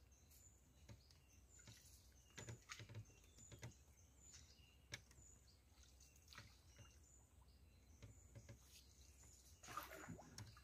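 Near silence, with faint, short, high bird chirps repeating every second or so and a few soft knocks, the loudest near the end.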